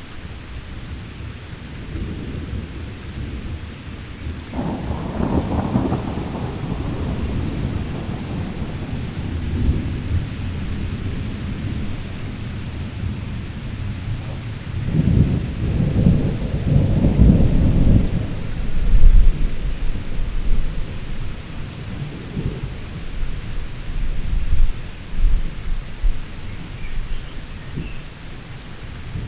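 Heavy rain falling steadily through a thunderstorm, with rolling thunder. One long rumble comes about five seconds in, and a louder, deeper one builds about fifteen seconds in and peaks a few seconds later, followed by smaller rumbles.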